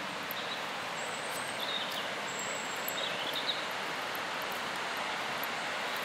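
Steady rush of the Barosa waterfall and its river, with a few faint high bird chirps in the first half.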